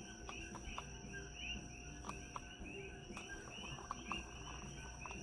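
Faint, rhythmic squeaking, about three to four squeaks a second, with light ticks: a stir stick scraping round a plastic cup while mixing pigment paste into epoxy resin.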